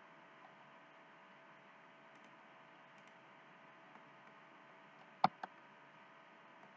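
Two quick sharp clicks about a fifth of a second apart, the first louder, from input at the computer, over a faint steady electrical hum and hiss.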